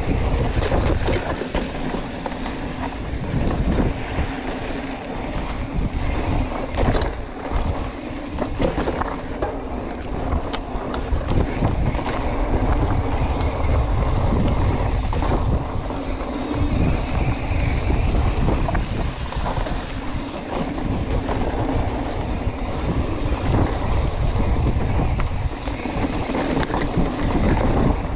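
Commencal hardtail mountain bike descending a rough dirt trail: tyres rolling over dirt and the bike rattling and clattering over bumps, heard from a handlebar-mounted camera, under a steady low rumble of wind on the microphone.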